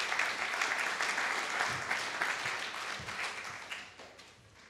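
Audience applauding: dense clapping that thins and dies away in the last second or so.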